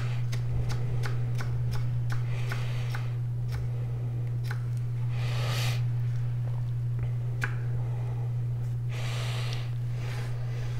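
A small VG10 Damascus kitchen knife slicing a red chili into thin strips on a wooden cutting board: light taps of the blade on the board, about three a second, then scattered taps and a couple of brief scraping sounds as the strips are pushed together. A steady low hum runs underneath.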